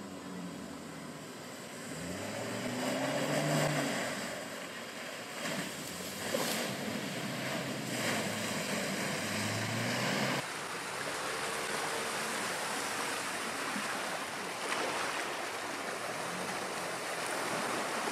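Land Rover Defender 90 P300's turbocharged four-cylinder petrol engine pulling at low speed as the SUV wades through a deep muddy rut. Water and mud slosh and splash around the wheels. The engine note rises and falls a few times under throttle.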